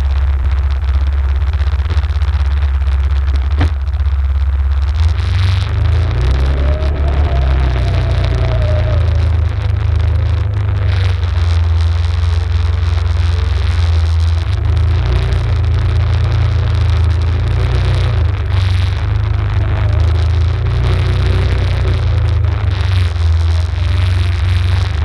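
Arctic Cat ATV engine running while riding, a loud steady low drone with a fainter whine that rises and falls with the throttle.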